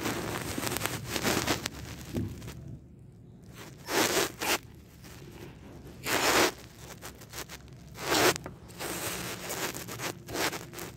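Rustling, scraping noise close to the microphone, coming in repeated short bursts: handling noise from the phone as it is held and moved while filming.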